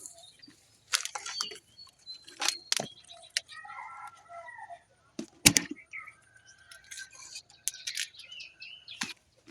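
Short bird calls, with several sharp clicks scattered among them; the loudest click comes about five and a half seconds in.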